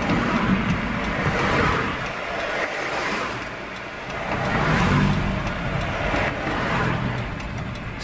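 Road traffic passing a parked car: a steady rush of tyres and engines that swells about five seconds in.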